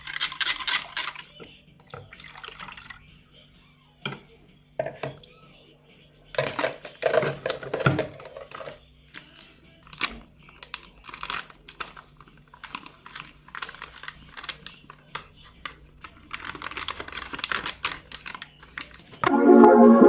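Wet muffin batter being stirred by hand in a container: irregular scraping and clattering of the utensil against the sides, with scattered knocks.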